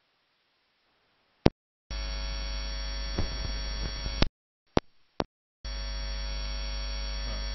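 Steady electrical hum with many overtones in the recording, switching abruptly on and off. It cuts in about two seconds in, drops out for about a second with a couple of clicks, then returns.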